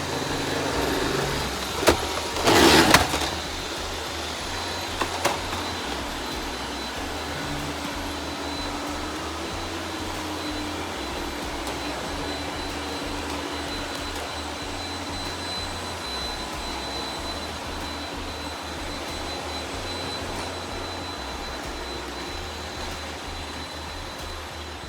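Robot vacuum running with a steady whir and a thin high whine. A few sharp knocks come about two to three seconds in, with a smaller one about five seconds in.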